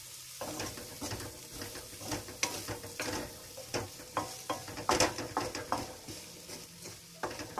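A spatula stirring and scraping soya chunks around a metal pan in short, uneven strokes, over a light sizzle of frying. They are being dry-fried in their own steam, with no water added.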